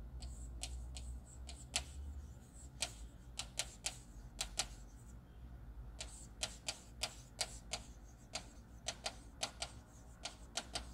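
Stylus pen tapping and clicking on an interactive touchscreen display during handwriting: a run of irregular light ticks, one to three a second, over a low steady hum.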